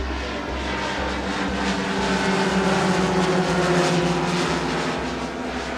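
Large radio-controlled model Lockheed Super Constellation flying past, its four propeller engines droning together. The drone swells to a peak about midway, drops slightly in pitch as the plane passes, then fades.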